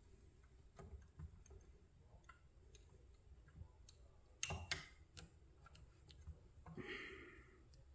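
Faint small clicks of pliers and a tiny pin against a model crane's boom cylinder as the bottom pin is worked back in. A sharper double click comes about halfway through, and a brief rustle comes near the end.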